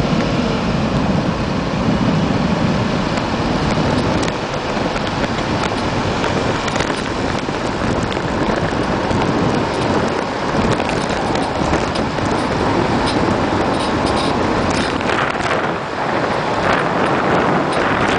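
Road and tyre noise from a 2007 Lincoln MKZ AWD driving along a mostly straight road: a steady rushing hiss, with scattered short clicks in the second half.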